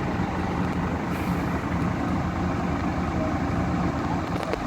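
Coach's diesel engine running with a steady low rumble.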